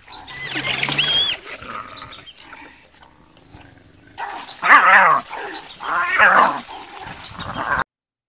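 Spotted hyena under attack from African wild dogs, crying out: thin high wavering calls early, then two loud, long squealing cries about five and six seconds in. The sound cuts off suddenly near the end.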